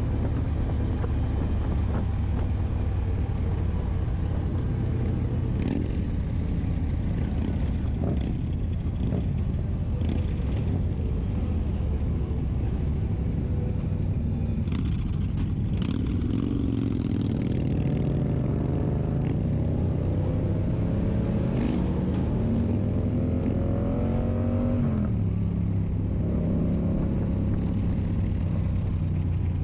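Yamaha MT-07 parallel-twin with an SC Project exhaust running under way, a steady deep rumble. In the second half its note climbs steadily for several seconds as it accelerates, then drops sharply. A few brief rushes of noise come through over it.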